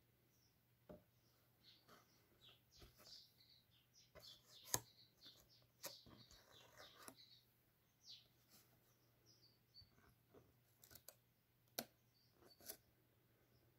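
Faint handling of a paper card and its layered die-cut paper butterfly: soft rustles and irregular sharp little clicks as the paper wings are bent and the card stock is handled, the loudest click about five seconds in. Faint high chirps run through it.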